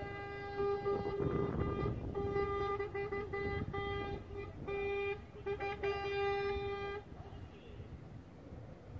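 A vehicle horn honking one steady note in a run of long and short toots, stopping about seven seconds in, over the low rumble of passing trucks.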